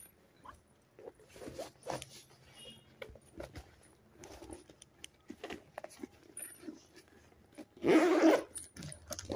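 Soft rustling and small clicks of a handbag and its packaging being handled, with one short, loud bark, likely from a dog, about eight seconds in.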